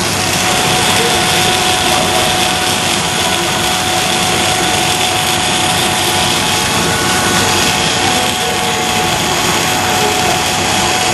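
Core-filling snack extruder production line machinery running: a loud, steady whir with a few held tones.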